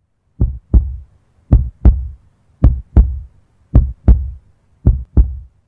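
Heartbeat sound effect: five double thumps in a steady lub-dub rhythm, about one beat-pair a second, deep and heavy with short tails.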